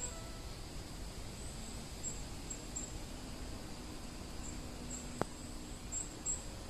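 Quiet woodland ambience: a steady soft background hiss with scattered short, high chirps and a single sharp click about five seconds in.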